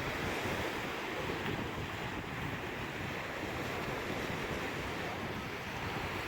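Sea surf: a steady wash of waves breaking and rushing, without distinct separate crashes.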